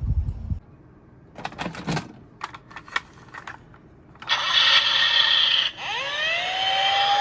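Small die-cast toy cars clicking and clattering against each other and the plastic box. About four seconds in a louder noisy sound starts, and near six seconds a police siren sound sweeps up in pitch and settles into a steady wail.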